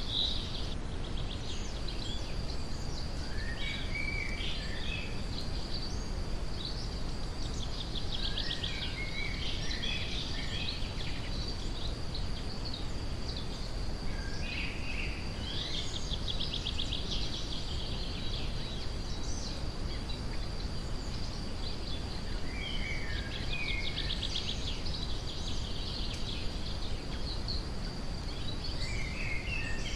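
Steady brown noise with forest birds singing over it: scattered short chirps and phrases and a few rapid trills, over a thin, steady high tone.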